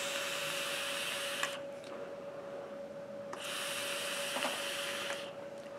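Two hissing draws through an EHPro Plume Veil rebuildable dripping atomizer with 24-gauge Kanthal coils, fired on a mechanical mod: air rushing through the airflow holes over the hot, wet coils. The first draw ends about a second and a half in, the second runs from about three and a half to five seconds in.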